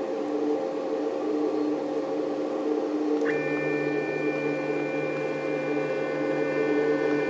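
CNC 3020 desktop router running with a steady motor hum. About three seconds in, a higher whine of several steady tones joins and holds.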